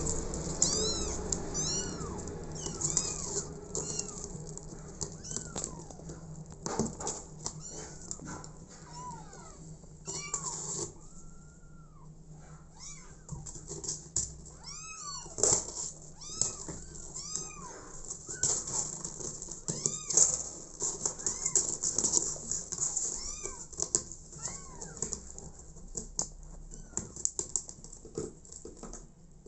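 Young kittens meowing over and over: many short, high-pitched mews that rise and fall, coming in quick runs. Scattered sharp clicks and knocks come in between.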